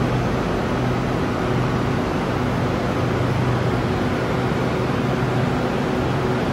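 Electric commuter train standing at the platform with its doors open, its air-conditioning and auxiliary equipment running with a steady hum and rush of air.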